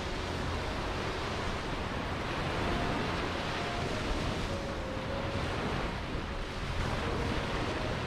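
Surf washing onto a sandy beach: a steady wash of small waves that swells and eases gently.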